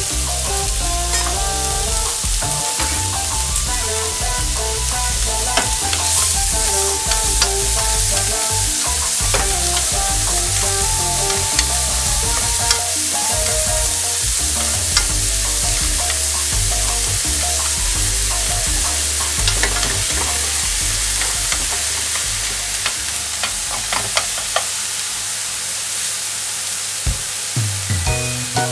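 Chopped onion sizzling steadily in hot oil in a nonstick frying pan, stirred with chopsticks that tap lightly against the pan now and then. Light background music plays underneath.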